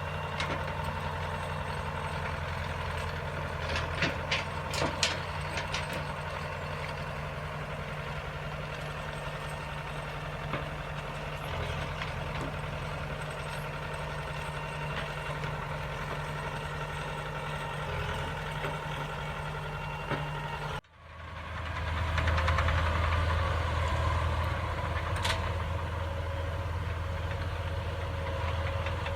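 Heavy diesel farm machinery engine running steadily with a low drone, with a few light clicks early on. About two-thirds through, the sound cuts out for an instant and comes back louder.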